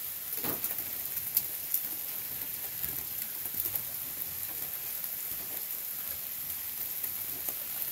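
Freezing rain of an ice storm falling through trees: a steady hiss, like roaring, with a few sharp ticks in the first two seconds.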